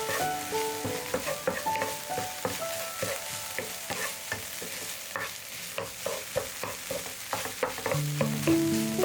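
Food sizzling in a frying pan, stirred with a utensil that clicks and scrapes irregularly against the pan. Background music with plucked, piano-like notes plays near the start and comes back near the end.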